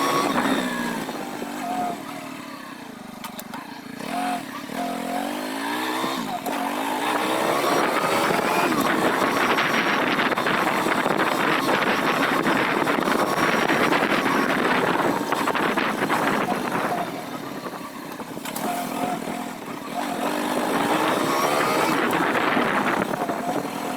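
A small motor engine running, its pitch rising and falling as it revs up and eases off, louder through the middle.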